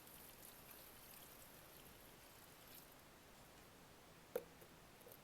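Near silence: a faint hiss with a few soft crackles, and one sharp short click about four seconds in.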